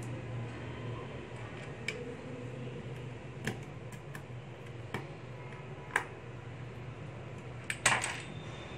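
Scattered light clicks and taps of small 3D-printed plastic parts and screws being handled during assembly, with a louder clatter near the end as a screwdriver and a small part are picked up from the table. A steady low hum runs underneath.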